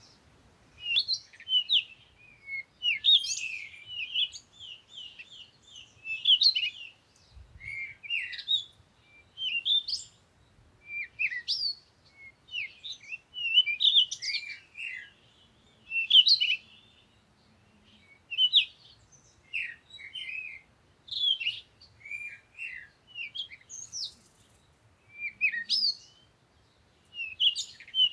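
Songbirds singing: short, high chirping phrases that follow one another about every second, with brief pauses between.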